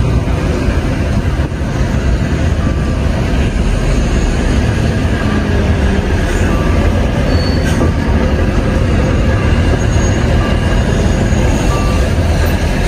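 Volvo truck in motion, heard from inside the cab: steady low rumble of engine and road noise, with a few faint short high-pitched squeaks over it.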